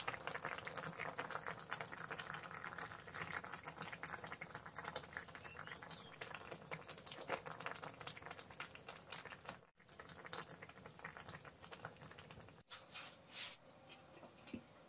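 Coconut-milk chicken and cha-om curry simmering in a pan: faint, dense bubbling and popping. It breaks off about ten seconds in, leaving only a few faint ticks.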